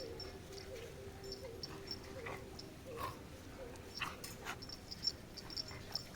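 A dog whimpering softly in short repeated whines, with faint high chirping and a few light clicks behind it.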